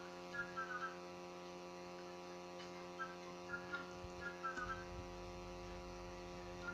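A pet meerkat giving short, high chirps in little runs of two or three, over a steady electrical hum.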